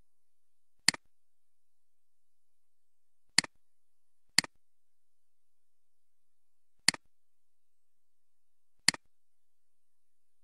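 Five sharp computer mouse clicks, irregularly spaced a second or two apart, each a quick press followed by a softer release.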